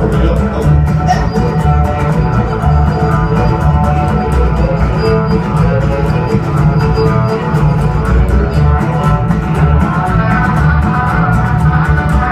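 Live band playing an instrumental passage: a violin over a strummed acoustic guitar, an electric guitar and an upright double bass, with a steady beat.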